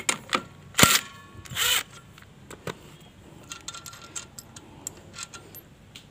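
A few short bursts from an impact wrench in the first two seconds, undoing the nut of a scooter's rear CVT pulley and clutch. Light metal clicks and clinks follow as the loosened nut and washers are taken off by hand.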